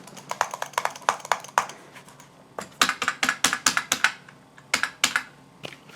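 Typing on a computer keyboard: quick runs of key clicks, with a pause about two seconds in and a brief one near the end.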